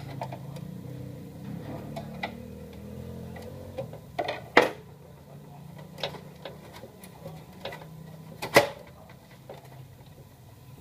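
Scattered clicks and knocks of hands handling the plastic casing of an HP LaserJet Pro M225dw laser printer. Two sharp, louder snaps come about four and a half and eight and a half seconds in, over a low steady hum.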